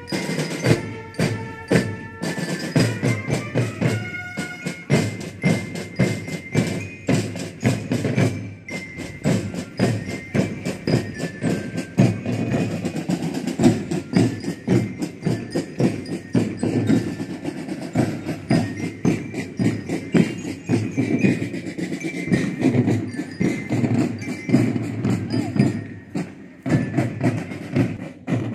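Military drum corps playing a march: snare, tenor and bass drums beat a steady, dense rhythm. A melody on trumpets and bell lyres is clear over the first dozen seconds, then fainter above the drums.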